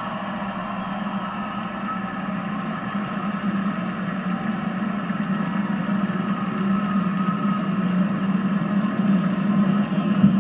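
Stadium crowd cheering steadily after a ring presentation, growing a little louder near the end, heard through a television's speaker.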